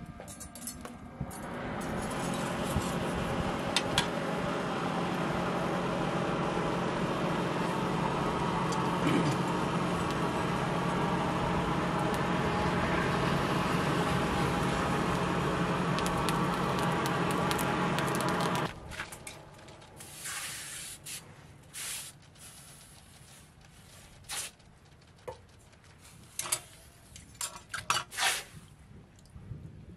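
Charcoal forge under a blower's air blast, a loud steady rushing noise with a faint hum, that cuts off suddenly about two-thirds of the way through. After it, scattered short knocks and splashes from a blade worked in a water trough, several near the end.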